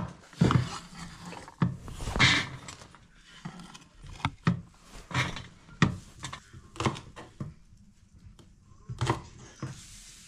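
Kitchen knife cutting garlic scapes on a wooden cutting board: a series of irregular sharp knocks of the blade on the board.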